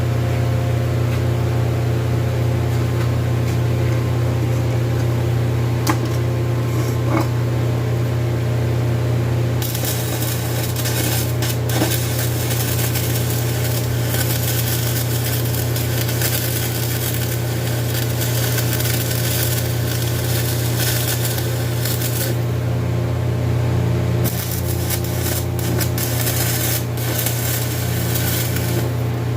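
Stick welder humming steadily, with the arc of a hardfacing rod crackling and hissing in two long runs: one from about a third of the way in, and a shorter one near the end.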